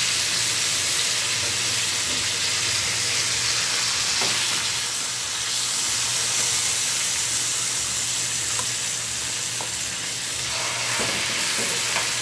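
Chicken pieces searing in hot oil in a frying pan, a steady sizzle, with a few light clicks near the end.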